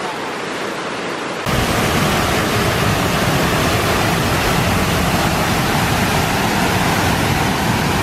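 Steady rushing of river rapids, which about a second and a half in jumps louder and deeper as a waterfall pouring over a rock ledge into white water takes over.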